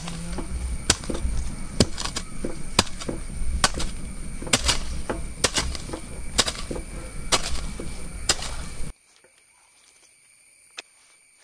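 A digging tool chopping into loose red soil in regular strokes, about one a second, over a steady high drone of insects. The strokes stop abruptly about nine seconds in, leaving faint background and a single click.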